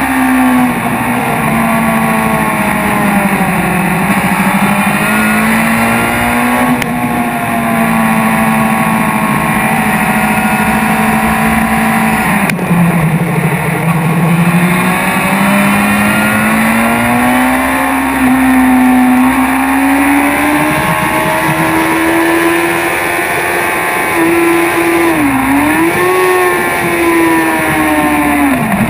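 BMW S1000RR's inline-four engine running hard, its pitch sinking as the bike slows for corners and climbing as it accelerates. Near the end the pitch drops sharply twice as it shifts up through the gears.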